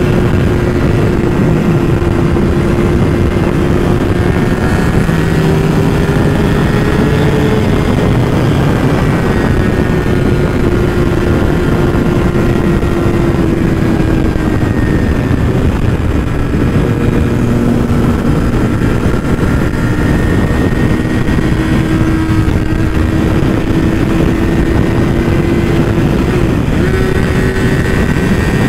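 Yamaha R6's inline-four engine holding a steady high rev at highway cruising speed. The pitch dips and rises slightly, over a heavy rush of wind on the microphone.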